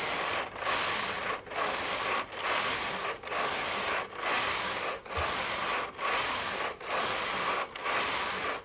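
Brother KH-950i knitting machine carriage being pushed back and forth across the needle bed, knitting Fair Isle rows: a rasping slide for each pass with a brief pause at each turn, about one pass a second.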